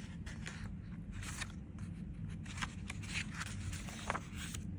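Paper pages of a softcover picture book being turned by hand: a string of short rustles and scrapes as the page is lifted, flipped and smoothed flat.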